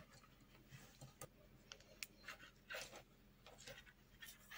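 Near silence with faint scattered clicks and soft rustles: metal knitting needles tapping and yarn being handled while stitches are worked and the piece is moved.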